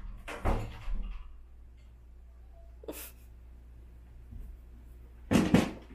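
Pet cats making short noisy sounds in a small room: a few brief bursts, the loudest a quick double burst near the end.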